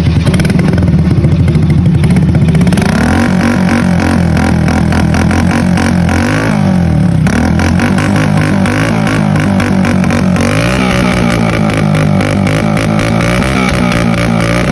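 Gilera Smash 110's single-cylinder four-stroke engine running just after a cold start, revved up and back down a few times. Its homemade ignition cut is fitted, but the cold engine does not pop.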